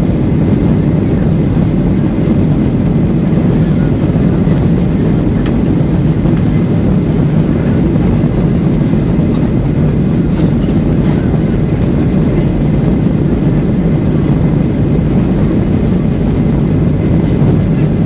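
Steady cabin rumble of a Boeing 737-800 taxiing, its CFM56 engines at low thrust, mixed with tyre and airframe noise.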